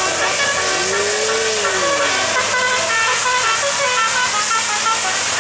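Tour bus telolet basuri multi-tone musical horn playing a quick tune of short stepped notes, with one tone that swoops up and back down about a second in, over a low steady hum.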